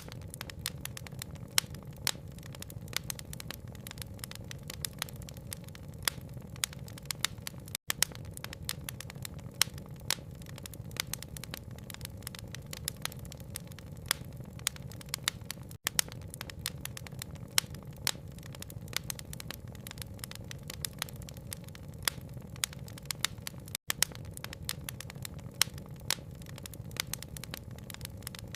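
Wood fire crackling with frequent sharp pops over a steady low rumble, mixed with rain. The sound cuts out for an instant about every eight seconds.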